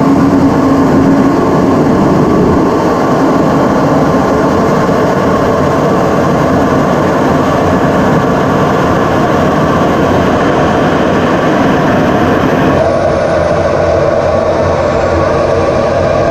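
Lockheed U-2's F118 turbofan jet engine running loudly at high power, a steady dense rush of jet noise. The sound changes abruptly about thirteen seconds in.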